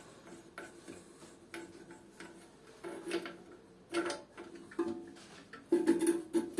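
Irregular light clicks and knocks of plastic toilet fill-valve parts being handled and fitted, sparse at first and growing busier and louder near the end.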